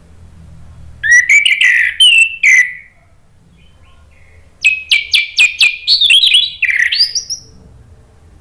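Orange-headed thrush singing: two loud phrases of varied, rapid whistled notes mixed with sharp clicks, each about two to three seconds long, with a short pause between them.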